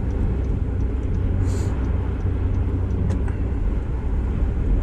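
Steady road and engine rumble heard from inside a car cabin while driving at highway speed, with a brief hiss about a second and a half in and a faint tick about three seconds in.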